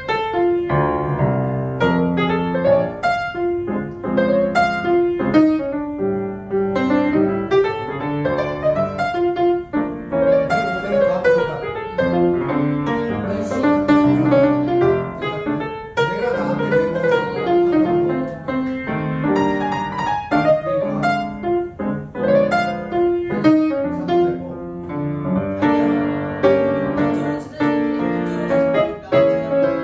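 Solo grand piano played live: melody over chords, with notes struck continuously throughout.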